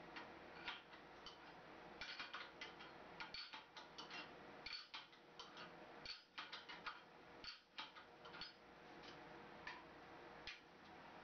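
Faint, irregular metallic clicks and ticks of a wrench turning the adjusting nut on a sheet metal brake's radius controller, which moves the upper-jaw fingers to set the bend radius.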